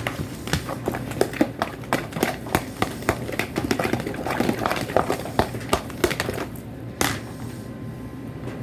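Thick slime being stirred with a spoon in a bowl: quick, irregular clicks and scrapes of the spoon against the bowl as the slime thickens, stopping about seven seconds in.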